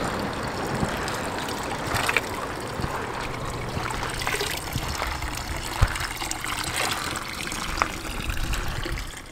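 Water trickling steadily from a wall fountain's spout into a metal trough, with light splashing as a hand is moved through the water.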